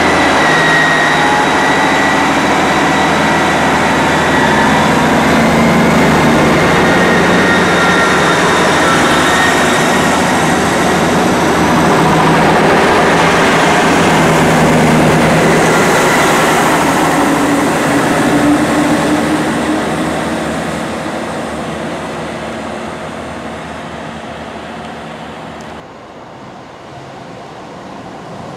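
East Midlands Railway diesel multiple unit moving slowly past at close range: diesel engines running with a steady transmission whine over the rumble. The sound fades as the train draws away, and near the end it cuts suddenly to a much quieter background.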